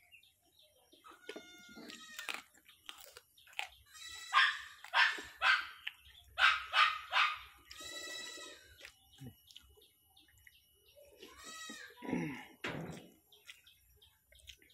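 Domestic animals calling. About four seconds in comes a quick series of about six loud short calls, the loudest sound here. Several drawn-out pitched calls are spread around them, and there is a lower falling call near the end.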